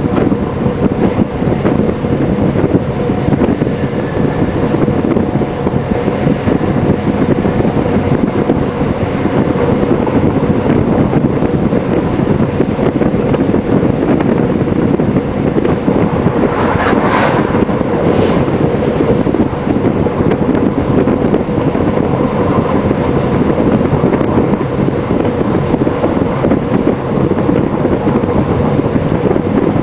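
Deutsche Bahn class 628 diesel-hydraulic railcar running along the line, heard from the driver's cab: a steady engine drone with a constant hum and rolling noise. A little past halfway there is a brief rise in hissing, higher-pitched noise.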